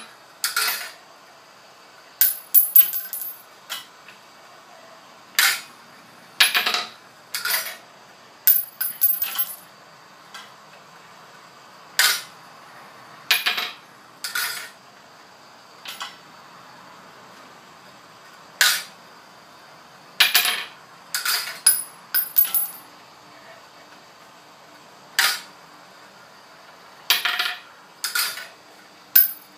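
Spent brass rifle cartridge cases dropping one by one through a homemade annealer's feeder and wheel and landing on the floor: sharp metallic clinks with a bright ring, every second or two, some in quick doubles and triples. A faint steady whine runs underneath.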